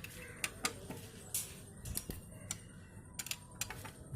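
Scattered sharp metallic clicks and clinks, irregular and a few to the second, of hand tools and bolts being handled while the engine's left-hand cover is worked on.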